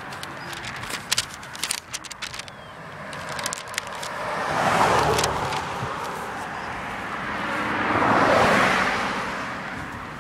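Two vehicles passing by on a road, their engine and tyre noise swelling and fading away, the first about five seconds in and the second near eight seconds. A few clicks and crackles come in the first couple of seconds.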